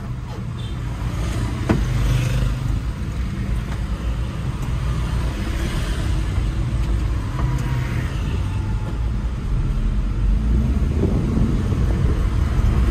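Suzuki Carry pickup's engine, heard from inside the cab, pulling away from a stop through the low gears over road and traffic noise. There is a single short click about two seconds in.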